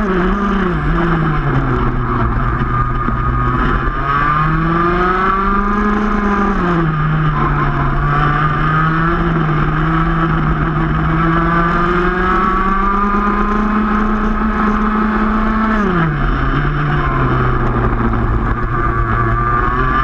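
Two-stroke racing kart engine heard from onboard the kart, its pitch rising through acceleration and falling when the driver lifts for corners. It dips about a second in, climbs around four to six seconds in, eases back, rises slowly again, then drops sharply about sixteen seconds in.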